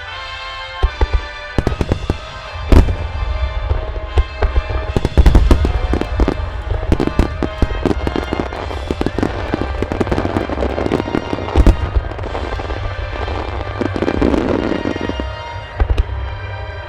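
Aerial firework shells bursting in quick succession, with sharp booms and dense crackling, over music that plays throughout. The loudest bangs come about three seconds in, around five seconds, near twelve seconds and near the end.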